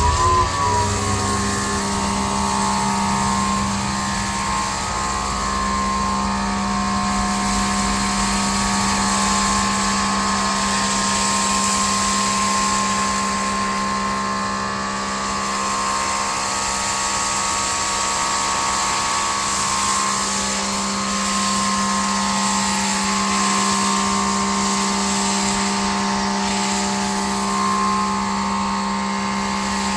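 Greenworks 2300 PSI brushless electric pressure washer running steadily, its motor and pump giving an even hum under the loud hiss of water and foam spraying from the foam cannon.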